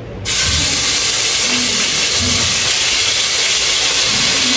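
A steady, loud hiss that starts abruptly about a quarter second in.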